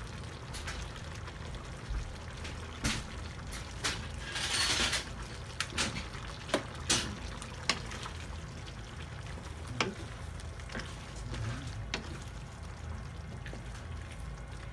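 Kitchen sounds at a pan of simmering tomato sauce while salt and pepper are added: scattered sharp clicks and taps of a utensil against the pan, and a brief hiss about four seconds in, over a low steady hum.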